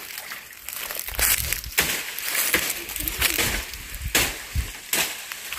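Footsteps pushing through undergrowth: dry leaves crunching, twigs snapping and plants brushing close past the microphone, in irregular steps.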